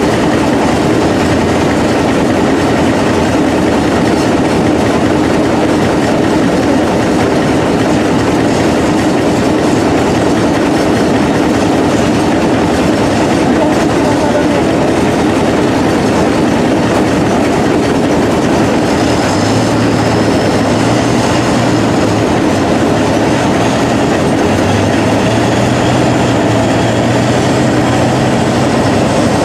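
Tatra 815 6x6 trial truck's diesel engine running hard under load as the truck climbs a steep muddy bank, a loud, steady mechanical din. In the last third a low steady hum and a faint high whine come in, the whine slowly rising in pitch.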